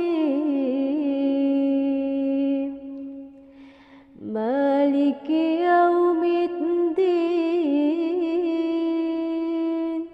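Melodic Quran recitation: a single voice chanting slowly with long held, ornamented notes. It pauses briefly for breath about three to four seconds in.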